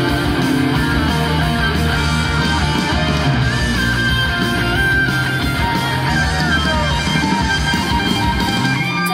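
Rock music with guitars playing, no singing.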